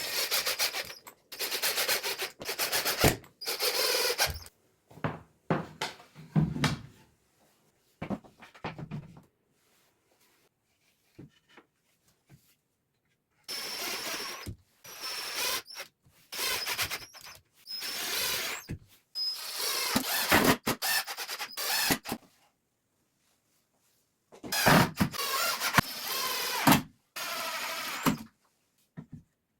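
A power tool working wood in repeated short runs of one to two seconds, with silent gaps between them.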